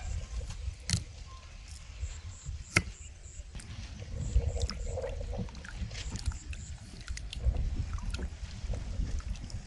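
Water sloshing and splashing as hands rub peeled carrots in a plastic bowl of water. Two sharp clicks come in the first three seconds.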